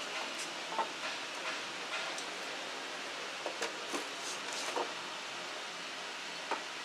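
Steady hiss with scattered faint clicks and rustles, the sound of handling a drill and its packaging during unboxing.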